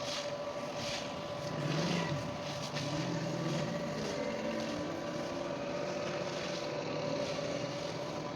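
A motor running steadily, with a constant hum. During the first two seconds there are short bursts of rustling and scraping, as treated maize seed is stirred and mixed.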